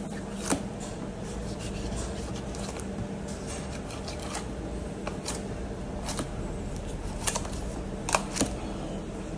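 Knife slicing and scraping as the hide is cut away from a cow's head, a few short scrapes at irregular intervals over a steady low hum.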